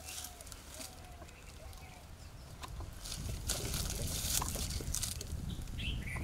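A few short hisses of medication being sprayed onto the wound on an injured elephant's leg, about half a second apart in the second half, over a low rumble.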